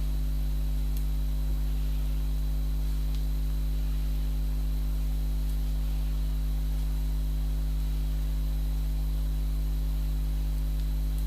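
Steady low electrical mains hum with a buzzy edge, unchanging throughout, with a few faint ticks.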